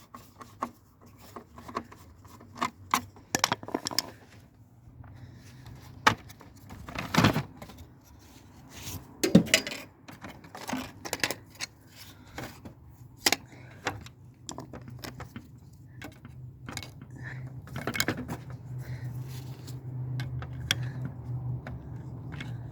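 Irregular clinks, rattles and knocks of metal and plastic parts being handled while a tower fan is taken apart for scrap. A low steady hum builds up over the last several seconds.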